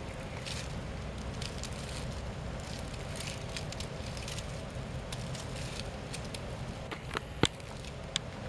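Dry leaves crackling faintly as a three-toed box turtle crawls slowly through leaf litter. A few sharp clicks come near the end, one much louder than the rest.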